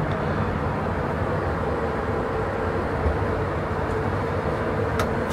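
Steady airliner cabin noise inside an Airbus A330-300 lavatory in flight: the engines and rushing air make an even roar with a steady hum in it.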